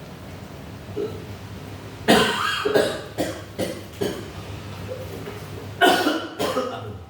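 A person coughing in a fit: a run of about five coughs starting about two seconds in, then two more near the end.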